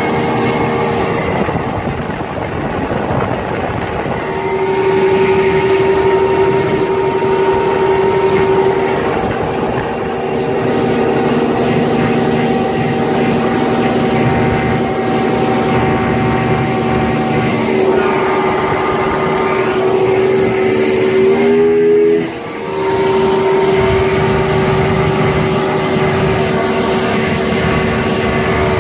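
Yamaha 150 HP OX66 V6 two-stroke outboard running steadily at high cruise, around 4,500 rpm, with the boat planing, heard under the rush of wind and water. About two-thirds through, the engine note wavers and the sound dips briefly, then steadies again.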